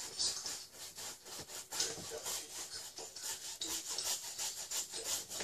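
Oil paint being scrubbed onto a large stretched canvas in quick, repeated back-and-forth strokes, a dry rubbing sound.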